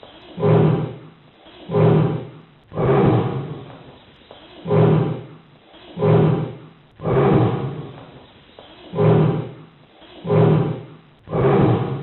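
A lion giving a long series of deep grunting roars, one about every second and a half, the tail end of a roaring bout.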